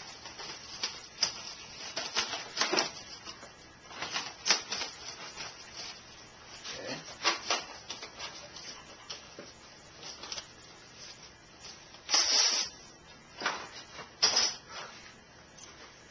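Plastic wrap being handled: the box opened and the clear film pulled out, crinkling and rustling in irregular bursts. The loudest, longest rustle comes about twelve seconds in.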